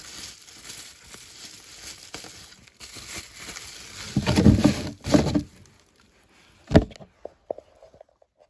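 Rustling and scraping handling noise, with a few louder knocks about four to five seconds in and a sharp click near seven seconds, followed by a few small clicks.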